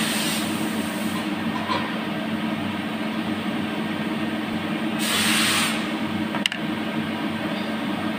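Steady background hum with noise, with two brief rustling swells and a single sharp click about six and a half seconds in.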